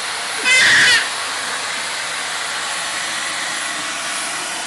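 Vacuum cleaner running steadily, with one short, loud, high squeal from a baby about half a second in.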